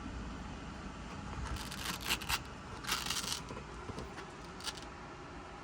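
Short scraping and rustling as the helmet liner and intercom wiring are handled during the install, in a few bursts about two and three seconds in, over a steady low hum.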